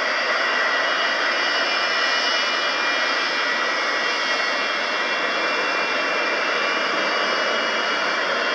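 Antonov An-225 Mriya's six Progress D-18T turbofans running at taxi power: a steady jet whine over a hiss, with no change in level.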